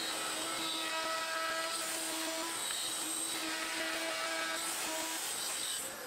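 DeWalt compact trim router in a plunge base running at full speed with a steady high whine as it routes a dado, guided along the slots of the dado jig. It starts suddenly just before this and stops suddenly near the end.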